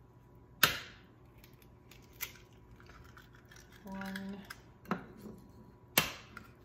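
Raw eggs being knocked against a hard edge to crack their shells, two sharp cracks about half a second in and near the end, with lighter clicks of shell and hands in between. A short hummed tone sounds about four seconds in.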